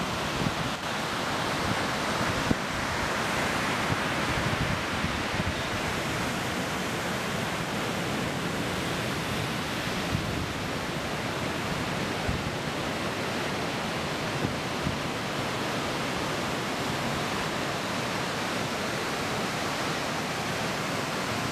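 Ocean surf breaking and washing onto the beach: a steady rushing wash.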